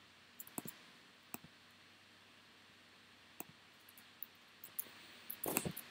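Faint computer mouse clicks: scattered single clicks, then a quick run of several clicks near the end.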